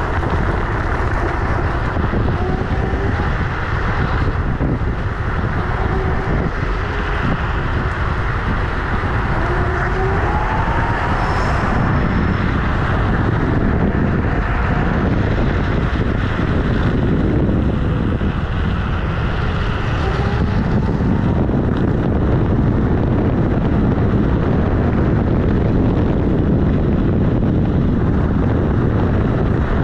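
Ride noise from a Kugoo G-Booster electric scooter: heavy wind buffeting on a microphone mounted by the wheel, over a steady rumble of the tyre on the road. A faint whine rises briefly a few times.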